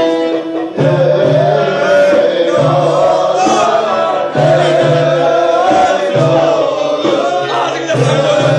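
Turkish folk dance music with singing: an ornamented, wavering melody over a short low bass figure that repeats in a steady rhythm.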